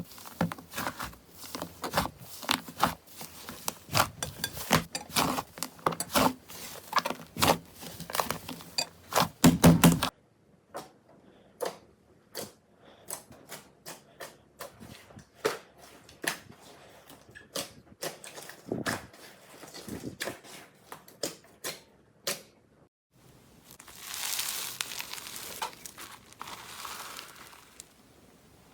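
Slime being squeezed and poked, giving rapid crackling clicks, then sparser single pops, and a soft squishy hiss near the end.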